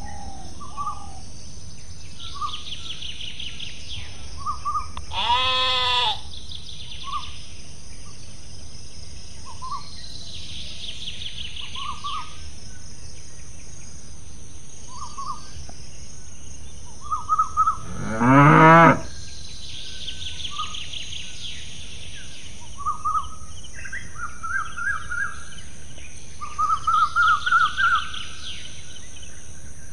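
Farm-animal soundscape: a cow moos once, deep and loud, a little past halfway, after a shorter, higher bleat about five seconds in. Between them come bursts of insect trilling every several seconds, short bird chirps that grow busier near the end, and a steady high hiss.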